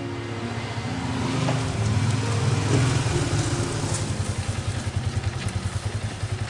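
A motorcycle rides up, its engine growing louder, then drops to an idle with an even pulsing beat.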